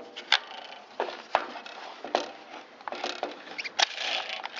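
Sharp plastic clicks and knocks with some scraping and rustling, from hands fitting the re-roped pull starter back onto a Stihl BG55 leaf blower.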